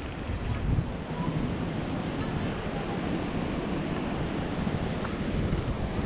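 Wind buffeting the microphone: a steady, low, fluctuating rush of noise.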